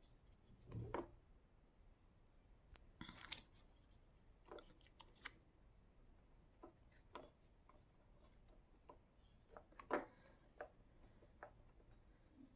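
Faint rustling and scattered light taps of a paper cutout being handled and pressed onto a cardboard tube, with the firmest sounds about a second in and near the end.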